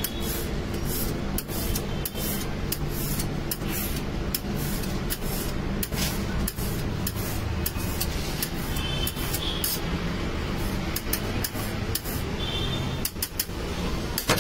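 Betel (paan) leaf being chopped with a serrated knife against a hard cutting surface: a run of sharp knife taps, about two or three a second, over a steady low hum.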